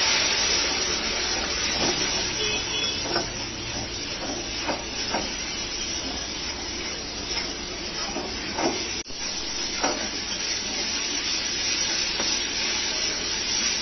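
Onion and spice masala sizzling steadily in oil and a splash of water in a kadai while it is cooked down, with a wooden spatula knocking and scraping against the pan now and then.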